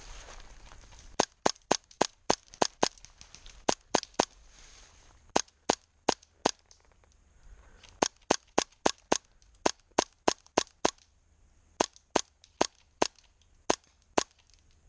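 Airsoft replica firing rapid single shots, about thirty sharp cracks in several quick strings of three to ten shots each.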